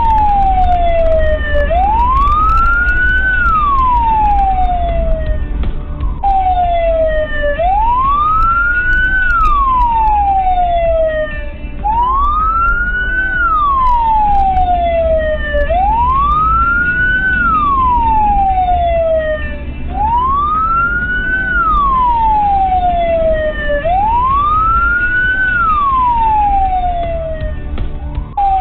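Emergency vehicle siren on a wail cycle, each sweep rising quickly and falling more slowly, about every four seconds. Under it is the steady low rumble of a car driving.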